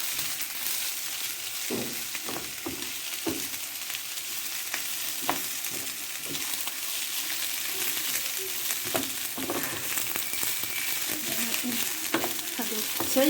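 Rice frying in oil with vegetables in a pan, sizzling steadily, while a utensil stirring it scrapes and knocks against the pan at irregular intervals.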